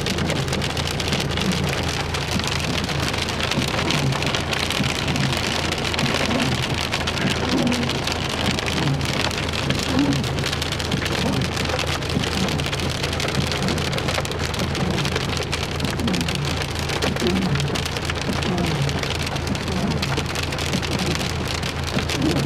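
Hail pelting a car's roof and windscreen, heard from inside the car: a dense, unbroken clatter of countless small impacts, over a steady low hum.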